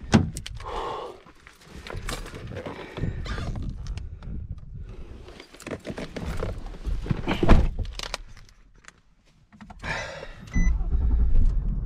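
Irregular knocks, clicks and clatter of things being handled close to the microphone, with a low rumble. Music comes in near the end.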